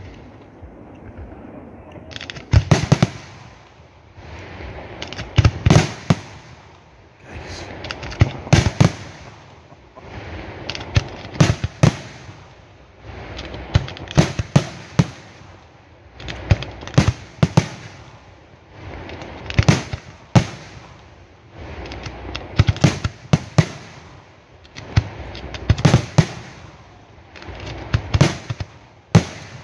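Aerial fireworks shells bursting: sharp bangs in tight clusters of two to four, a cluster about every three seconds, with steady noise in between.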